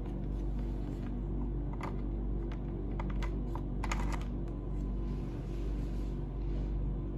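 Small plastic clicks and taps of a USB connector and cable being handled and plugged into a car stereo head unit, scattered singly and then in a quick cluster about four seconds in. Under them runs a steady low drone.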